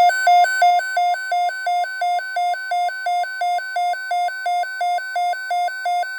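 Weather alert radio receiver's electronic alarm beeping rapidly, about three beeps a second, set off by a NOAA Weather Radio tornado watch alert. The station's steady warning tone runs quietly underneath.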